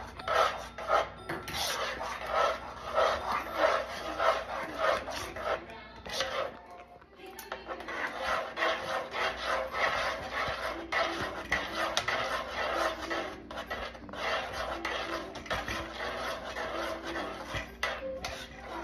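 A spoon stirring and scraping thick, cooking maja blanca in a pot: a steady run of rasping strokes, with a short break about six seconds in.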